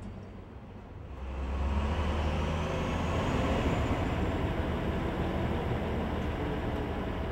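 City street traffic that grows loud about a second in as a heavy vehicle goes by close, with a deep low hum under a steady wash of road noise.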